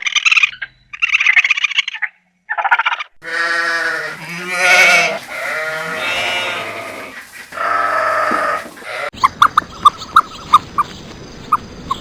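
Farm animals bleating: several long, wavering bleats one after another, loud and close. They are preceded by a few short high cat-like meows, and about nine seconds in give way to a run of short, high peeps.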